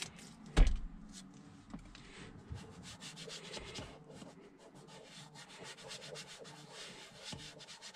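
An alcohol wipe scrubbing back and forth on the plastic trim under the dashboard, a fine scratchy rubbing, cleaning the spot where a brake controller will be taped on. A single knock comes about half a second in.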